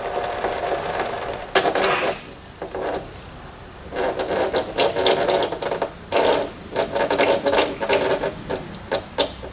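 Power ratchet run in several short bursts, a buzzing, rapid clicking, spinning bolts out on the car's rear end.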